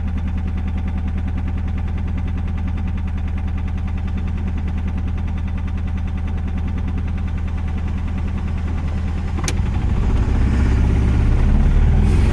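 Car engine running steadily, heard from inside the cabin while driving. About nine and a half seconds in there is a sharp click, and the sound then grows louder as an oncoming vehicle passes close by.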